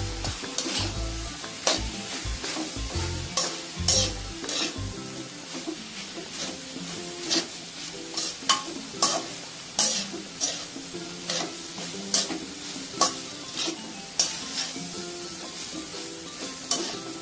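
Metal spatula scraping and clacking against a metal kadhai while stirring soaked poha into fried vegetables, with irregular sharp scrapes about once or twice a second over a steady sizzle from the hot pan.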